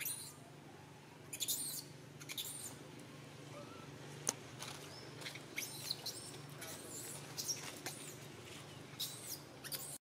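Short, very high-pitched animal squeaks and chirps in scattered runs, with one sharp click about four seconds in, over a faint steady low hum.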